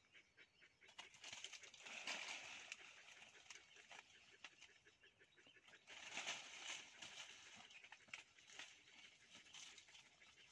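Faint rustling of dry leaf litter and leafy branches as a young monkey scrambles and climbs, with scattered small crackles and two louder spells of rustling, about two seconds in and about six seconds in.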